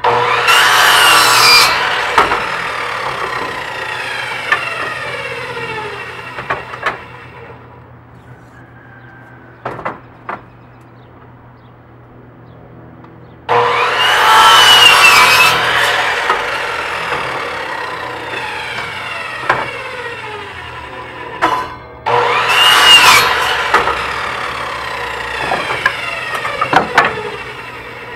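Electric miter saw cutting wooden deck balusters, three cuts: at the start, about halfway through and again about two-thirds in. Each cut comes in suddenly and loud, then the blade's whine falls away over several seconds as it spins down.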